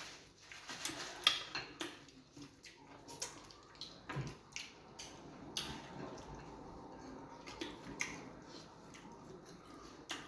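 Wet eating sounds: irregular smacking and squelching clicks of mouths chewing soft fufu and soup, with the odd tick of a dish or utensil.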